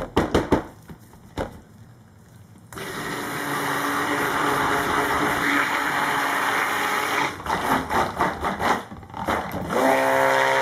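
Handheld stick blender in a plastic measuring cup of cold-process soap batter, blending in titanium dioxide colorant. A few sharp knocks at the start, then the motor runs steadily for several seconds, comes in short pulses, and runs steadily again near the end.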